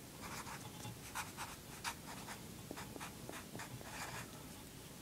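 Black marker writing on a sheet of paper: a faint, irregular run of short scratching strokes.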